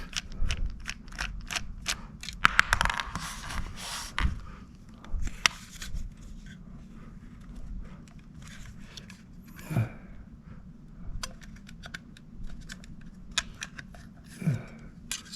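Small parts of an external hard drive being handled and pried apart: a run of irregular clicks, taps and scrapes of plastic and metal, busiest in the first few seconds. A voice makes two short low sounds, about ten and fourteen seconds in.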